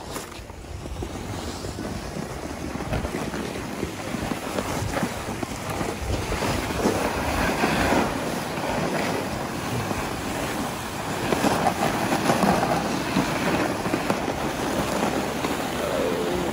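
Wind rushing over a phone's microphone while skiing, a steady noise that grows louder over the first several seconds.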